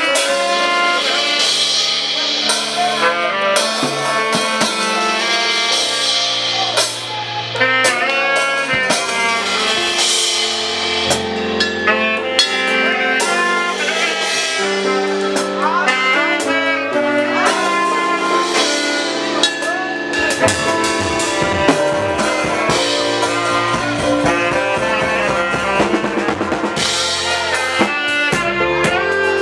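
Band music with a drum kit keeping a steady beat under several melody instruments, with a deeper bass line coming in about twenty seconds in.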